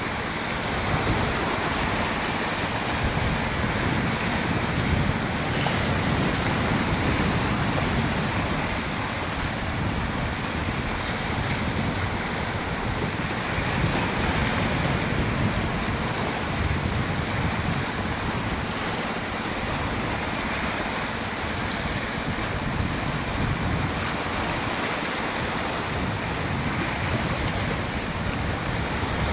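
Sea surf washing in a steady rush, swelling and easing gently.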